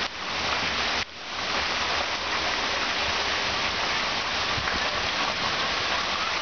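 Heavy downpour: a steady, dense hiss of rain pouring onto the street, lawn and porch, briefly dipping about a second in.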